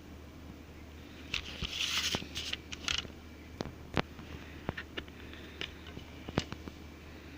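Plastic packaging of a CD being handled and unwrapped: a burst of crinkling and crackling, then a few scattered sharp clicks.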